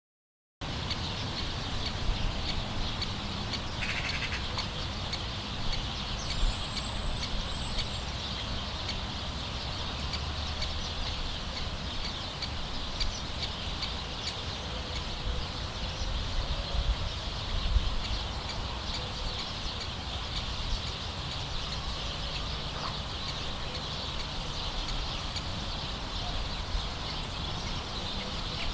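Birds calling over a steady hissing background, with a short high chirp about seven seconds in and scattered faint clicks.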